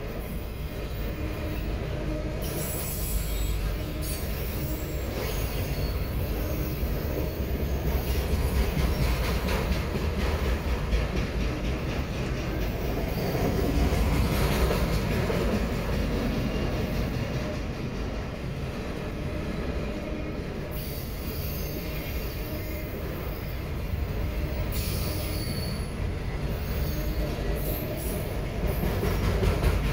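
CSX autorack freight cars rolling past close by: a steady low rumble of steel wheels on rail, with high-pitched wheel squeal coming and going several times.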